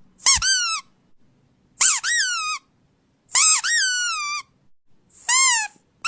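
Four high-pitched squeaks, about a second and a half apart, each one rising sharply and then sliding down in pitch before cutting off.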